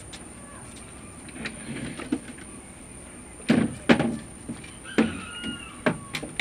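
A few irregular knocks and clunks from handling the wooden door and tools, the loudest a pair about half a second apart a little past the middle, with a faint short squeak around that time.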